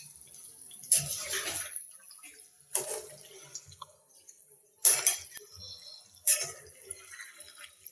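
A steel ladle stirring thick chicken gravy in a pot: four wet sloshing strokes, one every second and a half to two seconds.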